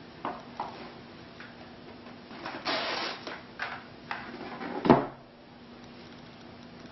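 Glad plastic cling wrap being pulled off its roll and torn from the box, with crinkling and light clicks, then one sharp knock about five seconds in as the cardboard box is set down on the table.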